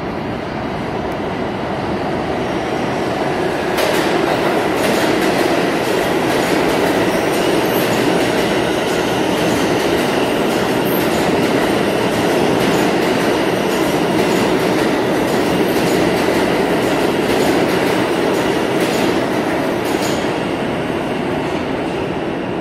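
New York City subway train running along the platform of an underground station: a loud, steady rumble of steel wheels on rail that builds over the first few seconds as the train comes in. Clicks of the wheels over rail joints run through it.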